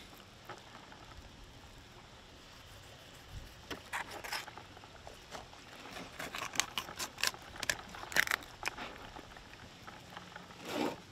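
Fillet knife cutting through a bonito's skin and flesh, with the fish handled on a plastic table: wet crackling and clicking that comes in clusters from about four seconds in, with a longer rustling burst near the end.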